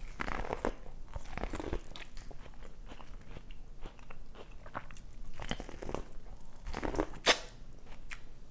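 Close-miked eating: a person biting and chewing food, with short crunches and wet mouth clicks, and one sharper, louder crunch about seven seconds in.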